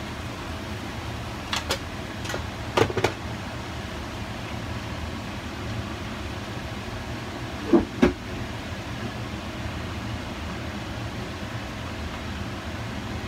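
A steady low hum with a few sharp clicks and knocks: a cluster of light ones between about one and a half and three seconds in, and a louder pair about eight seconds in.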